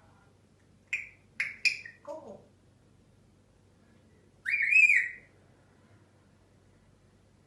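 A pet bird calls: a quick run of short chirps, then about four and a half seconds in one longer whistle that rises and falls.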